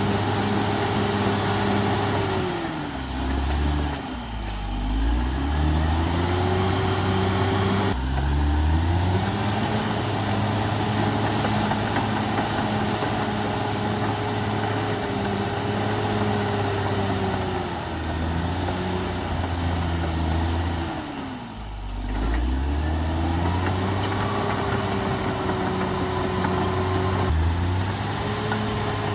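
CAT D6R XL bulldozer's diesel engine running hard. Its pitch drops and recovers twice, about three seconds in and again about twenty seconds in, with a faint high whine above it.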